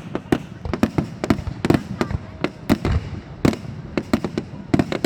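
Aerial fireworks shells bursting in a rapid finale barrage: sharp bangs about three a second, irregularly spaced, some with a short echoing tail.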